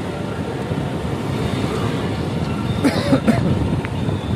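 Steady street-traffic and wind noise heard from a moving two-wheeler riding through a busy town street, with a brief louder burst about three seconds in.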